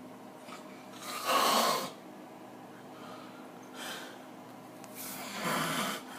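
A man snoring heavily in his sleep: two loud, rough snores about four seconds apart, the first about a second in, with a softer breath between them.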